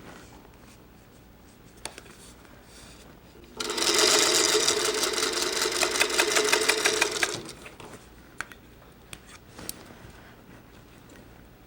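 Electric sewing machine stitching a seam through quilt fabric for about four seconds, starting about three and a half seconds in, then stopping. A few light clicks follow.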